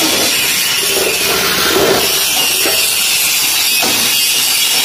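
A power tool running steadily in a metal workshop, a loud, even, harsh hiss that does not let up.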